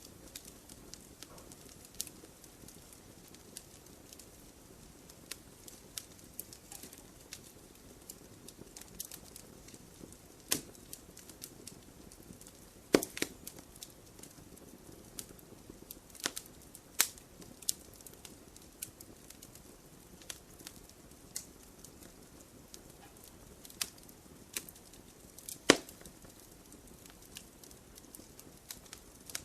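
Campfire crackling: irregular sharp pops and snaps of burning wood over a soft steady hiss, a few of them louder than the rest.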